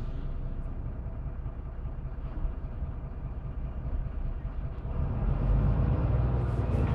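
Cabin sound of a Mercedes-Benz Conecto LF city bus under way: its OM926LA diesel engine and road noise make a steady low rumble, which grows louder about five seconds in.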